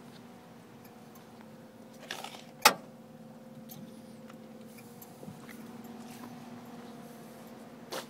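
Handling noise from a handheld phone moving around a vehicle cab: light rustles and clicks, with one sharp knock about two and a half seconds in, over a steady hum.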